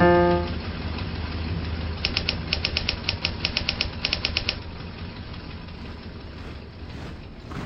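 Typewriter keys clacking in a quick run of about twenty strokes in small bursts, a typing sound effect laid under text appearing letter by letter. A piano note fades out at the very start.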